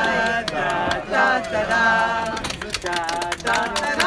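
Voices singing a song in long held notes, with scattered hand claps that come thicker near the end.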